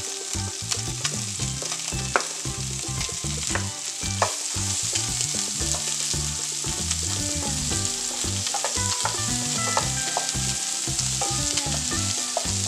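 Diced red onion sizzling in hot rendered pork fat with browned pork pieces in a pan, stirred with a wooden spatula: a steady frying hiss with occasional scrapes and clicks.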